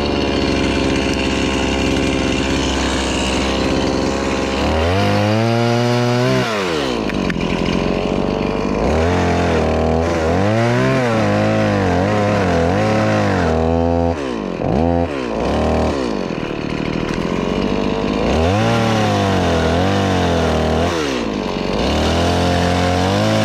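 Chainsaw engine running loud and steady at high speed, then cutting a tree limb: its pitch sags and recovers several times as the chain loads up in the wood.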